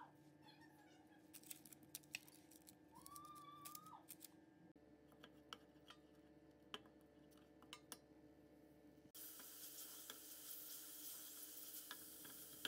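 Faint clicks and scrapes of a wooden spoon stirring in a stainless steel pot. Minced garlic frying in ghee sizzles through the last few seconds. About three seconds in there is a short high meow-like call.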